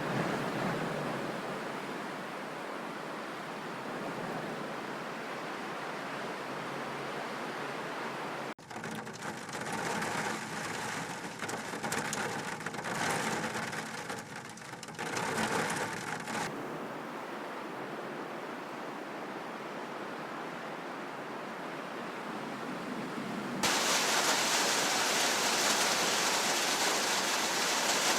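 Steady rushing noise of outdoor weather footage, changing abruptly three times; the last part, from about three-quarters of the way in, is louder and hissier.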